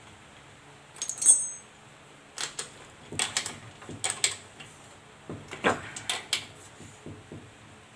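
Metal clinks and knocks as a bicycle crank arm is fitted back onto the square-taper bottom bracket spindle, the loudest about a second in with a brief high metallic ring.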